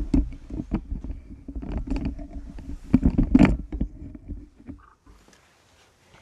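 Handling noise from a recording device being moved close to its microphone: a string of knocks and rustles over a low rumble, louder around three seconds in, then dropping to quiet about five seconds in.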